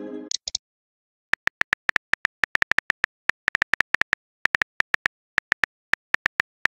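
Simulated phone-keyboard key clicks: an irregular run of short, sharp taps, about seven a second, as a text message is typed out letter by letter. It opens with the fading tail of a message-alert chime, then a second of quiet before the typing starts.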